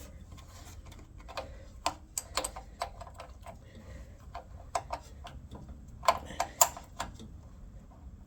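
Irregular metal clicks and taps of a spanner working the nuts tight on a small engine's carburetor mounting, the loudest few coming close together near the end.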